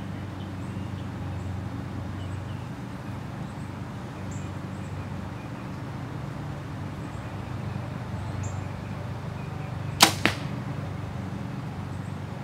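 An arrow from a compound bow strikes a bag target with a sharp thwack about ten seconds in, followed by a weaker second hit a moment later, over a steady low background hum.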